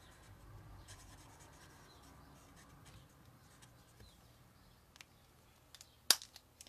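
Faint rubbing of an ink-blending tool on card as ink is worked in with a circular motion, followed by a single sharp click near the end.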